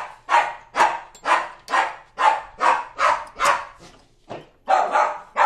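Dog barking over and over, about two barks a second, with a short break near the middle before it starts again.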